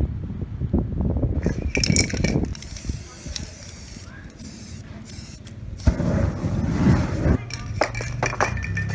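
Aerosol spray-paint can at work: a clicking rattle, then a hiss in several short bursts with brief stops. A sharp knock sounds about six seconds in, and clicking and clinking return near the end.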